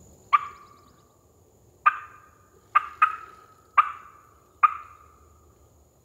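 Mouth-blown crow locator call: six loud, harsh caws in an uneven series, each cut off sharply and fading quickly, blown to provoke a gobbler into shock-gobbling.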